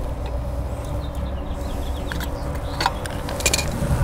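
Small clicks and rattles of hand wiring work, wires being twisted together under wire nuts, with a few sharp clicks near the end, over a steady low hum.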